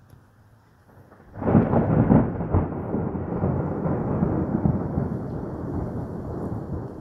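Thunder: a sudden loud crack about a second and a half in, then a long rumble that slowly fades.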